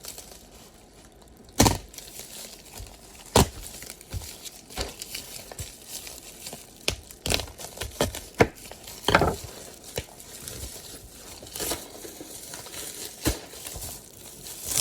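Brown paper wrapping being torn open and crumpled by hand, in irregular sharp rips and crackles.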